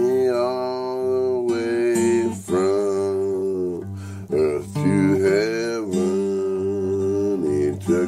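A man singing a gospel song in long drawn-out notes, with short breaks between phrases, to his own acoustic guitar.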